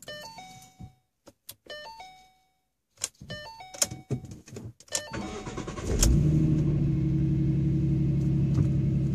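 A car's chime of short stepped electronic tones plays three times. Then, about five seconds in, the starter cranks and the 2011 Ford Mustang's 3.7-litre V6 fires on a cold start. It settles into a steady idle through its GT H-pipe and Ford Racing GT500 axleback mufflers.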